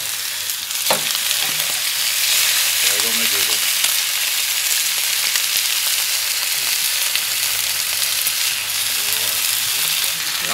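Beef steaks sizzling on the hot plate of a gas barbecue: a loud, steady hiss of searing meat, with a single sharp click about a second in.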